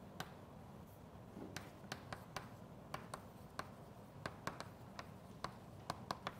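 Chalk writing on a blackboard: a string of sharp, irregular taps, a few a second, as the chalk strikes the board with each stroke.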